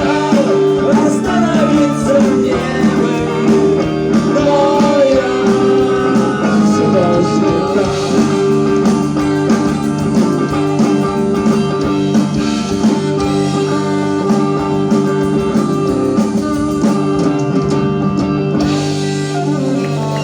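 Saxophone playing a pop-ballad melody over a backing track with guitar, the line wavering early on and then settling into long held notes.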